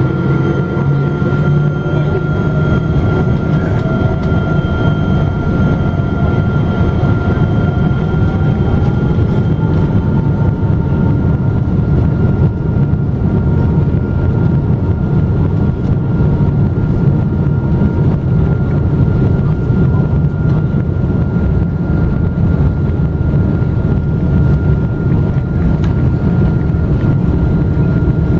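Cabin noise of a Boeing 777-200 under engine power: a loud, steady low rumble with an engine whine that rises in pitch over the first ten seconds or so and then holds steady, as the engines run up toward takeoff thrust.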